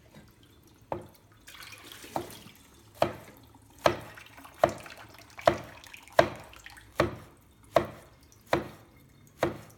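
A toddler splashing and knocking about in a sink of water, making a sharp splash or knock a little more than once a second that settles into a steady rhythm.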